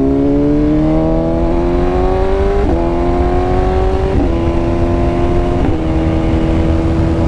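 BMW S1000RR's inline-four engine pulling away: its note rises, then it shifts up three times in quick succession, the pitch dipping at each change and then holding steady. Wind rushes over the microphone underneath.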